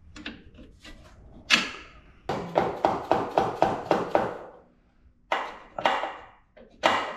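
Hammer blows on metal under a car's front end, knocking a stuck part out. There is a single hard strike, then a quick run of about four blows a second, then further groups of blows, each one ringing briefly.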